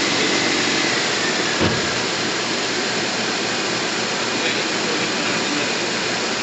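Toyota 4A-FE 1.6-litre DOHC four-cylinder engine running just after starting, its camshaft subgear freshly re-tensioned, heard as a loud steady mechanical rush. A thin whine falls slightly in pitch and fades out in the first couple of seconds, and a single knock sounds about a second and a half in.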